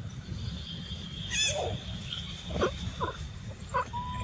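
Macaques of a monkey troop giving short squeaks and chirps, with one higher arched call about a second and a half in, over a steady high-pitched hum.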